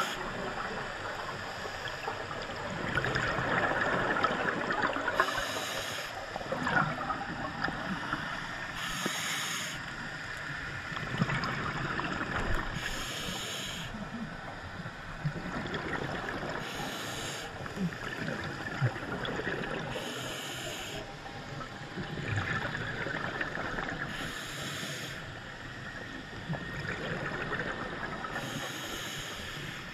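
A scuba diver breathing through a regulator underwater: a short hiss on each inhale about every four seconds, each followed by a rush of gurgling exhaled bubbles.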